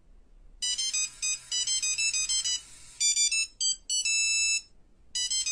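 Electronic ringtone melody of quick high-pitched beeps, starting about half a second in and ending its phrase on a held chord, then starting over after a short pause near the end.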